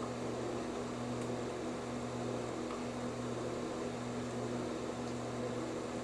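Room tone: a steady low hum with a faint hiss, no distinct sounds.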